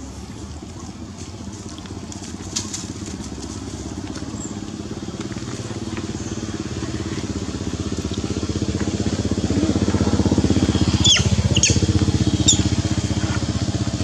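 A motorcycle engine running steadily, growing louder through the middle as it comes closer. Near the end there are three brief, high squeaks.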